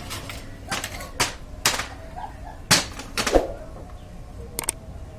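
Irregular sharp clicks and knocks, about eight of them, from tools and metal parts being handled during suspension repair work.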